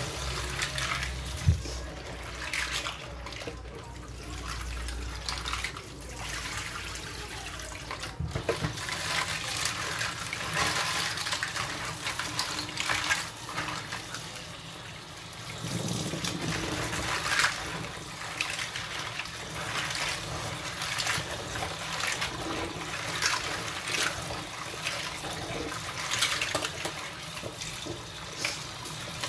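Kitchen tap running into a stainless-steel sink while clams are rubbed and rinsed by hand in a metal colander, with frequent small clicks of the shells knocking together. This is the clams being washed free of sand.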